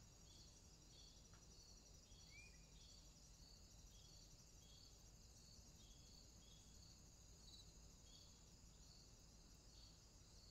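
Very faint crickets chirping in a steady, evenly spaced pattern, with one short rising chirp about two seconds in.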